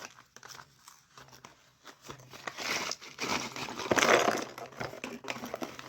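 Packaging crinkling and rustling as it is handled, scattered small crackles at first, then a denser, louder stretch of crinkling in the middle.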